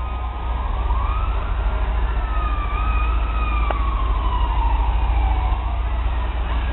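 Fire truck siren wailing, its pitch rising about a second in and then sliding slowly down over several seconds, over a steady low rumble.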